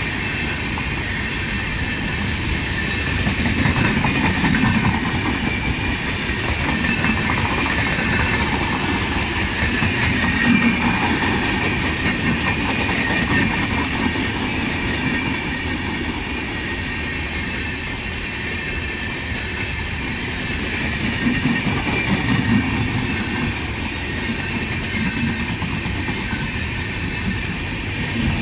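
Indian Railways express passenger coaches rolling past at speed, their wheels running on the rails in a steady, unbroken noise.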